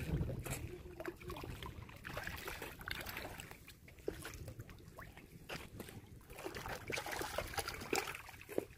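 Water splashing and sloshing against shoreline rocks as a hooked catfish thrashes at the surface, in short irregular splashes, over a steady wind rumble on the microphone.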